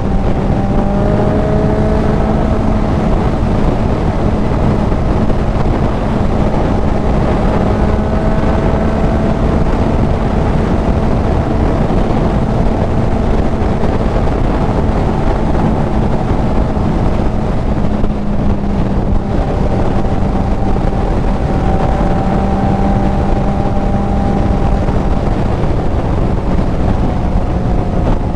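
Kawasaki Z900's inline-four with an aftermarket CS Racing full exhaust running at a steady cruise, its engine note holding nearly even with only slight rises and dips in pitch. Heavy wind rush on the helmet microphone is mixed in.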